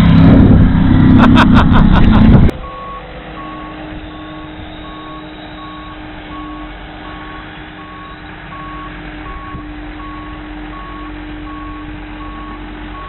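The 46-foot Skater catamaran's engines run loud at speed over rushing wind and water, with a few sharp cracks, then cut off suddenly about two and a half seconds in. A boat forklift's reversing beeper then repeats about one and a half times a second over the forklift's low, steady engine hum.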